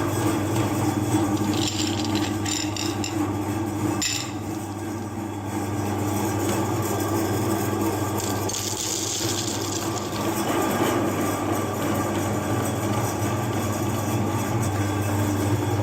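Meat grinder running steadily as chocolate is fed through it, a constant motor hum under a rasping, grinding noise that dips briefly about four seconds in.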